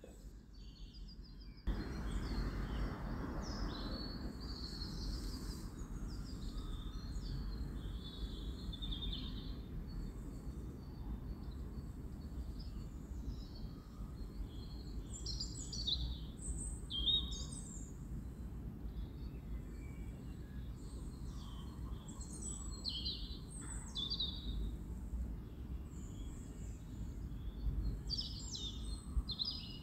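Small birds chirping and singing in many short calls and trills over a steady low rumble. The sound comes in about two seconds in, after near quiet.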